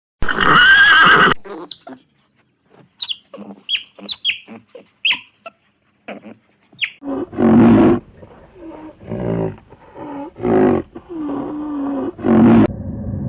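Animal calls: a loud pitched call at the start, then a run of short, sharp high-pitched calls, then lower, longer calls that waver in pitch, cut off abruptly near the end.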